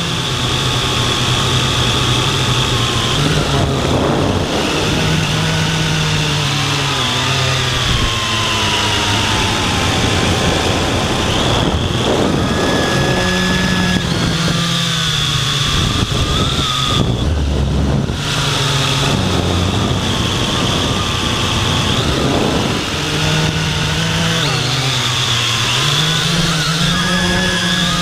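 Quadcopter drone's electric motors and propellers whining close to the microphone, their pitch rising and falling as the drone descends to the ground.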